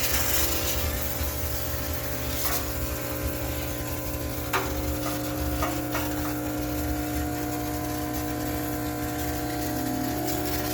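High-pressure steam cleaner running steadily: a continuous hiss over a motor hum, with a few short clicks or knocks about two, four and six seconds in.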